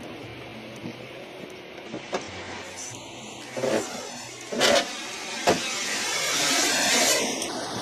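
A car driving on a wet highway, heard from inside the car: a steady hiss of road noise and tyre spray that swells near the end, with a few sharp thumps and knocks about halfway through.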